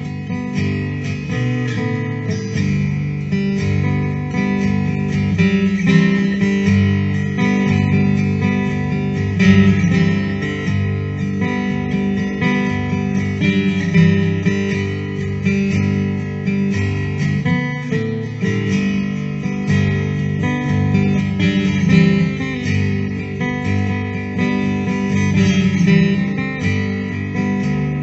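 Instrumental guitar music, strummed and picked acoustic guitar with a steady rhythm.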